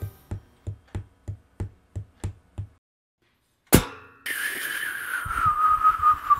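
Cartoon sound effects: a row of soft, evenly spaced thumps, about three a second, like footsteps, then after a short pause a single sharp bang. After that comes a steady whistled tone that dips slightly in pitch and wavers, over a hiss.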